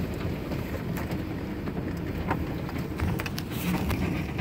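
1935 Ford's flathead V8 running as the car rolls slowly, heard from the driver's seat of the open convertible, with a few light clicks and knocks from the car about one second in and again in the second half.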